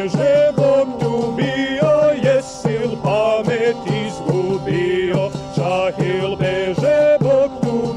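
Serbian folk music on a tambura, a long-necked plucked lute, over a steady beat struck with the hand on a small timpan frame drum.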